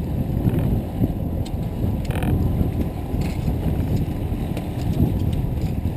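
Boat under way on open water: a steady low rumble of motor and water, with wind buffeting the microphone.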